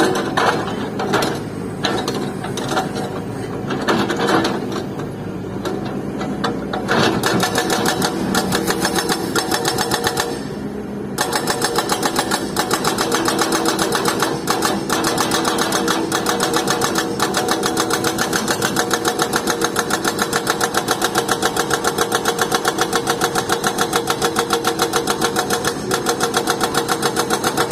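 Hydraulic breaker on a Volvo crawler excavator hammering rock. It chatters unevenly at first, stops briefly about ten seconds in, then settles into a long steady run of rapid, even blows.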